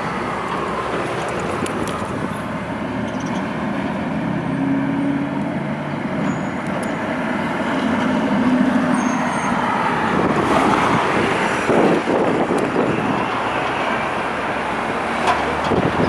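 Busy city street traffic: a steady wash of passing cars, with the hum of a heavy vehicle's engine held for a few seconds at a time.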